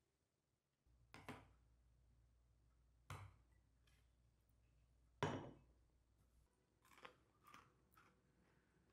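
A few short knocks and clicks of tableware and food being handled in a quiet room: one about a second in, another about three seconds in, a louder one about five seconds in, then three lighter clicks near the end.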